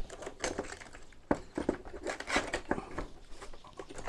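Old metal and ceramic spare parts being set back into a wooden box: a run of small knocks, clicks and clatters.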